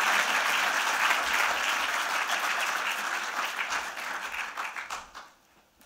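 Audience applauding, a roomful of people clapping, which thins out and dies away about five seconds in.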